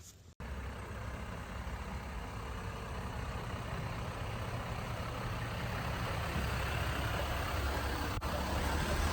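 Off-road Jeep driving along the trail, its engine running steadily and growing gradually louder.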